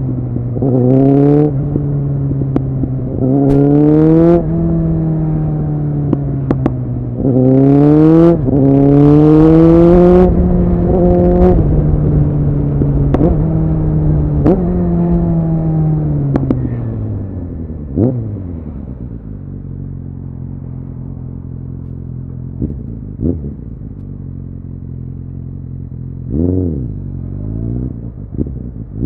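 2009 Suzuki Bandit 650's inline-four engine through an aftermarket MIVV exhaust, under hard acceleration. The note climbs and drops back at each upshift, several times in the first ten seconds, then falls away as the bike slows, with a sharp pop. It runs low and steady for a while before a short rev near the end.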